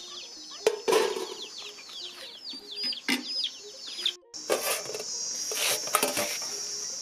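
Chicks peeping in a rapid stream of short falling chirps, with low clucks from a hen and a few knocks. After a sudden break about four seconds in, a steady high insect trill takes over, with a few rustling noises.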